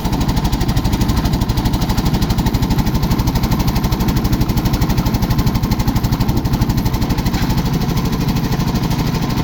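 Engine of a concrete mixer and lift machine running steadily, with a rapid, even chugging pulse of about ten beats a second.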